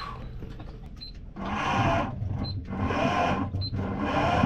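Sailboat autopilot's chain-drive motor, just repaired after a gear failure, running in three short runs of about a second each, its pitch rising and falling with each run. Short high beeps come just before the runs.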